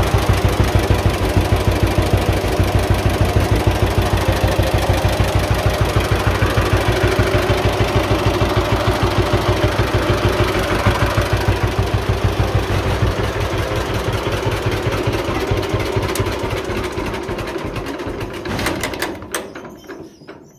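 1948 John Deere A's two-cylinder engine running at idle with a steady stream of exhaust pops. Near the end it is shut off, slowing and fading out over several seconds, with a few last knocks as it stops.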